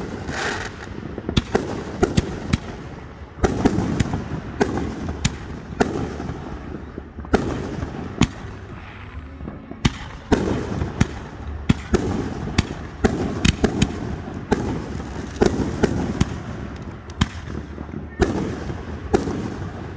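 Aerial fireworks display: a steady string of sharp shell bursts, some in quick clusters, with crackle and rumbling echo between them.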